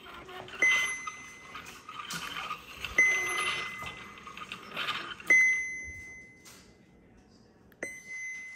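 A small bell dinging four times, about two and a half seconds apart. Each ding is a clear high ring that fades away, with a scuffing noise between the first three.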